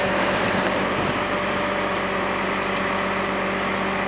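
Engine of a truck-mounted crane running steadily while it drives the hydraulic crane lifting a house section.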